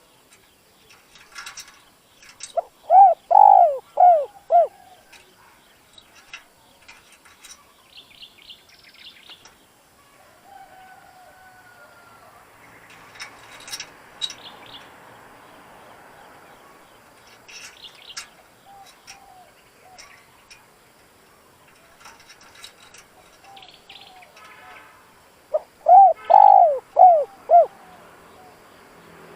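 Spotted dove cooing: two phrases of four or five deep, hooting coos, about three seconds in and again near the end. It is a decoy bird calling to lure wild doves. Faint chirps of small birds come in between.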